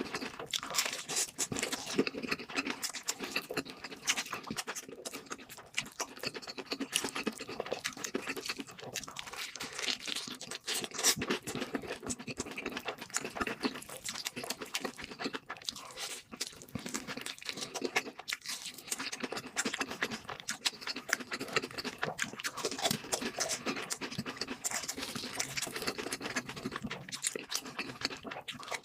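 Mouth chewing and crunching fried food, with continuous irregular crackly crunches and wet mouth sounds.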